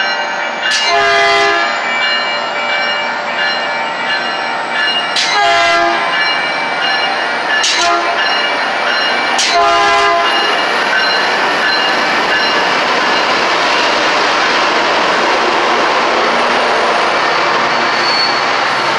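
A Caltrain diesel locomotive's air horn sounds four blasts, long, long, short, long, the grade-crossing signal, as the train comes through the station. After the last blast, the cars roll past close by with the steady noise of wheels on rails.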